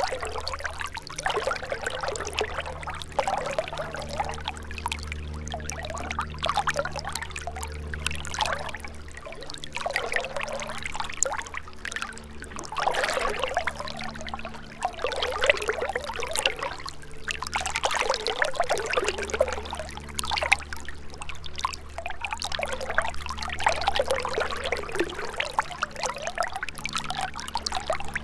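A gentle river running over stones, gurgling and trickling in uneven surges. A steady low hum runs underneath.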